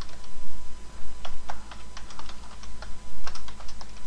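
Computer keyboard being typed on: irregular runs of keystrokes, several a second, as a line of code is entered.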